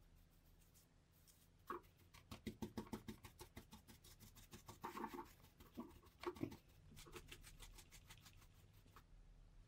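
Dry paintbrush bristles scrubbing and dabbing over gold leaf laid on a twisted metal piece and the wooden bench, brushing off the loose leaf: a quick run of soft scratchy strokes, several a second. It starts about two seconds in and stops near the end.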